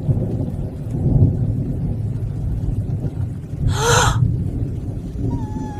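Steady low rumble of thunder and rain, with a short breathy gasp about four seconds in.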